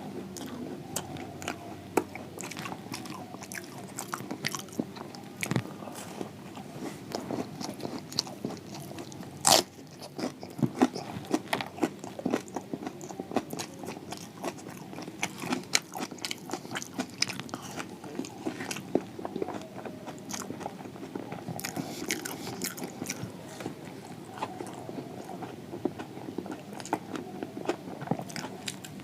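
Close-miked eating of crispy fried samosas: repeated crunchy bites through the pastry and continuous chewing. The loudest crunch comes about a third of the way in.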